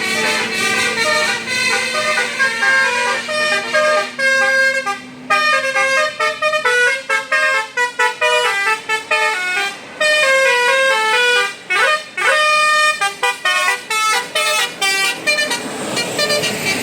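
Bus telolet basuri horn, a multi-tone musical air horn, playing a fast melody of short notes in quick steps, with brief breaks and a couple of rising swoops about twelve seconds in.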